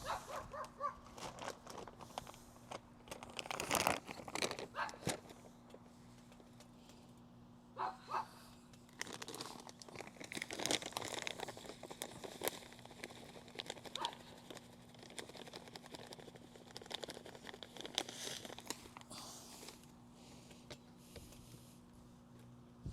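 Irregular crinkling and rustling with scattered sharp clicks, as of things being handled, loudest about four seconds in and again around the middle.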